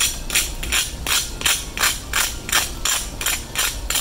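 Freshly fried sabudana and potato pakoras being tapped in the hand, a dry crunchy knock about three times a second. The sound shows how crisp their fried crust is.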